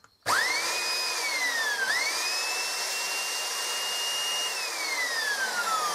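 Rebuilt Electrolux 302 vacuum cleaner brushed motor, with a new bearing and new carbon brushes and no fans fitted, test-run on the bench. It starts suddenly and spins up with a rising whine, dips and picks up again just under two seconds in, then runs with a steady high whine. About four and a half seconds in it is switched off and winds down with a falling whine; the motor runs, and its noise is "not too bad".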